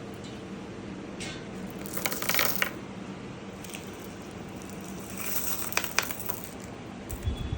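Loose gemstones clicking and clinking against one another and a hard surface as they are handled. There is a small cluster of rattling clinks about two seconds in and a few sharp single clicks around the sixth second, over a steady low hum.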